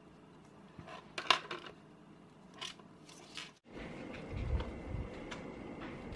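A pen scratching across a paper memo pad in a few short strokes. After an abrupt cut partway through, soft low thumps and a few light taps follow as the paper note is pressed onto a cork board.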